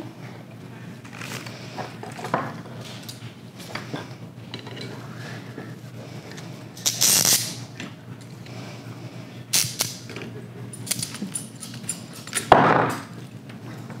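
Ratchet cable cutter worked on a 2-aught battery cable, with handling of the cable and tools: scattered sharp clicks, a noisy burst about seven seconds in and a louder one near the end.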